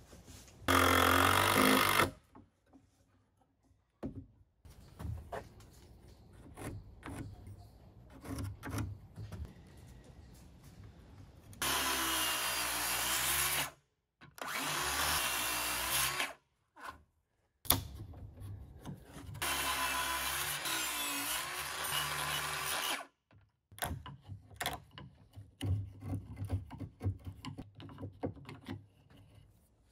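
DeWalt circular saw cutting a wooden post in several loud runs of a few seconds each, with short breaks between them. Light clicks and scraping of a chisel on the wood fill the gaps and the last few seconds.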